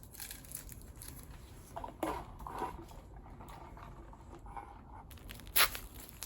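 Small handling noises in a small room: light rustles and taps, with one sharp click about five and a half seconds in.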